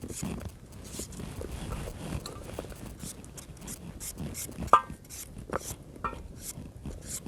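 An irregular series of short scraping strokes, like a hard tool or utensil working against something. About two-thirds of the way through there is one sharp metallic clink, the loudest sound.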